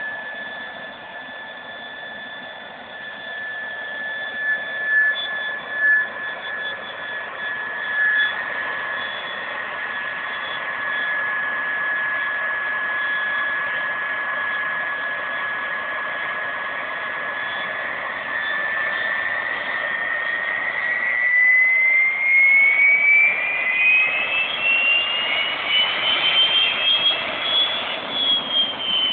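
Turbomeca Marboré turbojet running on a test stand: a steady high whine over a rushing roar, which about two-thirds of the way through climbs steadily in pitch as the engine spools up, then eases back slightly at the end.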